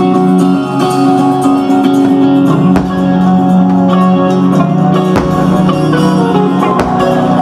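Live rock band playing loud through a PA: electric guitars over bass, drums and keyboards, with a few sharp drum hits.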